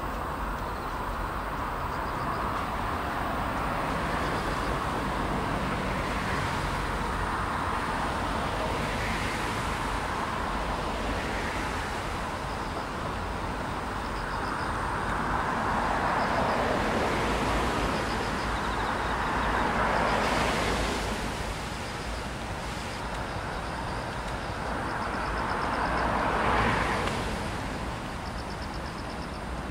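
Road traffic on a rain-wet road: a steady hiss of tyres that swells and fades as vehicles pass, loudest about two-thirds of the way through and again near the end.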